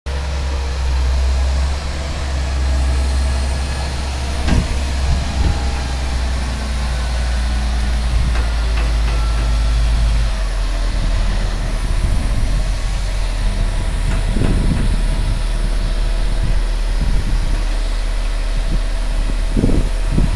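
A heavy engine running steadily at idle with a deep hum that changes note about halfway through, with a few knocks and clunks.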